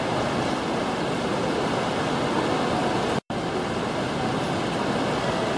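Heavy rain falling steadily, a dense even hiss, with the sound cutting out for a moment a little past three seconds in.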